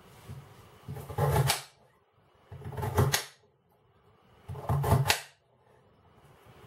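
Kitchen knife slicing through a raw potato three times, each cut ending in a sharp knock of the blade on the chopping board.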